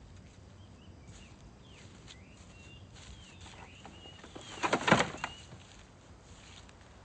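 Birds chirping in short curving calls, then about five seconds in a motor scooter is knocked over onto the ground with a short, loud crash of several quick knocks.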